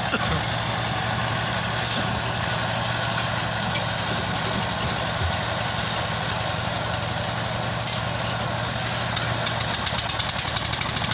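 A heavy engine running steadily at constant speed. Near the end a fast, even pulsing comes in and grows louder.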